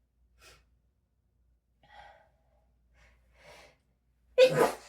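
A person's sneezing fit: a few faint, catching breaths, then one loud, sudden sneeze near the end.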